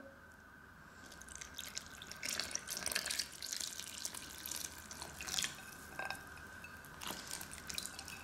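A yellow liquid mix of melted butter, milk and dissolved yeast pours from a glass bowl into a well of flour in a glass mixing bowl, making a steady trickling splash. It starts about a second in, with a few light clicks along the way.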